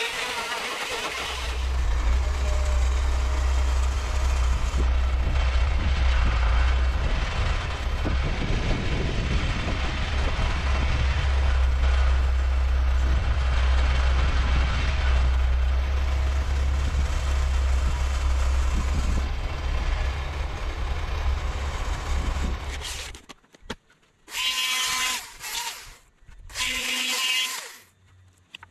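Tractor diesel engine running steadily with a deep, even hum, then cutting off abruptly. Two short chainsaw bursts follow near the end.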